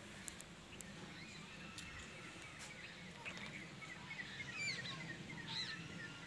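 Faint birdsong: several small birds chirping and twittering in quick short calls, busiest in the second half. A few light clicks come in the first two seconds.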